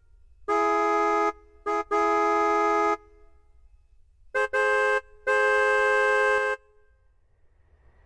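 Car horn sound effect played from a Casio CT-X9000 keyboard's built-in effects: honks that switch on and off abruptly, a long one, a short one and a long one, then three more at a slightly higher pitch ending on the longest.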